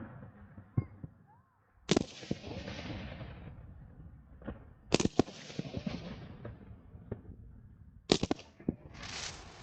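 Fireworks going off: three loud bangs about three seconds apart, the last two doubled, each followed by a fading crackling hiss, with a rising hiss near the end.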